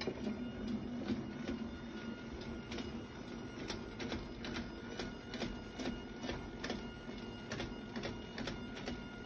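Electric hospital bed's motor running as the bed is lowered with its corded hand control: a steady hum with regular light ticking.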